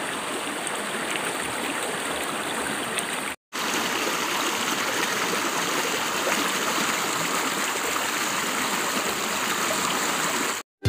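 Swollen, muddy stream rushing and churning white over rocks, a steady water noise. It cuts out for an instant about three and a half seconds in, then carries on.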